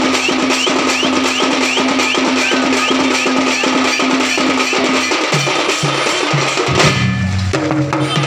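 Odia ghanta badya ensemble playing: dense, fast drumming on a rack of large drums mixed with metallic gong strokes. The rhythm and the low drum notes change about five seconds in.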